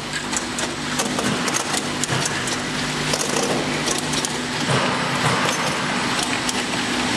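Automatic bottle conveyor and capping machine running: a steady motor hum with rapid, irregular clicking and clinking as small brown bottles knock together and against the guide rails.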